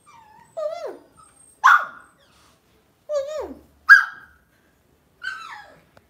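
Lhasa Apso puppy whining and yipping: three short falling whines, the first two each followed by a louder, sharp yip.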